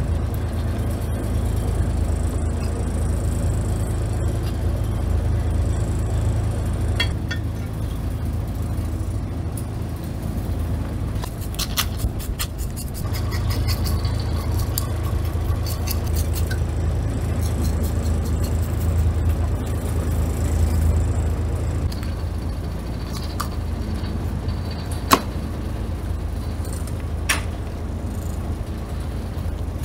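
Steady low hum of a boat's engine idling. About twelve seconds in comes a burst of rapid scraping clicks from a fish scaler raking scales off a fish, and there are two sharp knocks near the end.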